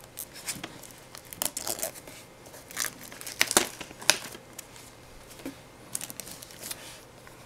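Crinkly wrapping being torn and crumpled by hand off a DVD box set: irregular crackling rustles, loudest about three and a half to four seconds in.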